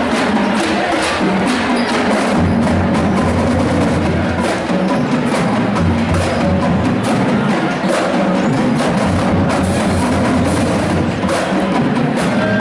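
A drumline playing: a dense run of sharp drum and stick strokes over bass drum hits, loud and unbroken.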